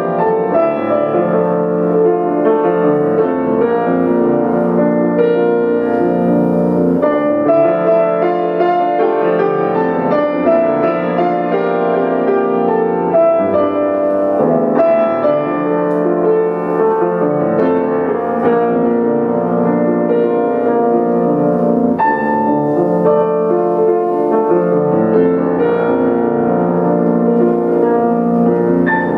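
Solo grand piano playing a continuous passage of layered, sustained notes without a pause.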